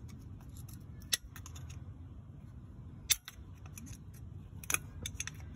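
Scattered sharp plastic-and-metal clicks and snaps as a pick tool pries at the plastic retaining clip on a transmission cooler line quick-connect fitting, with louder snaps about a second in, about three seconds in and near the end.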